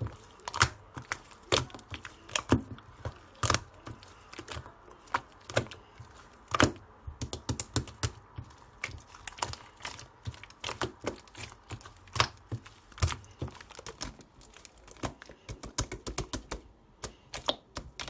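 Large sky-blue slime being squeezed and poked by hand, giving irregular sharp clicks and pops of trapped air, several a second.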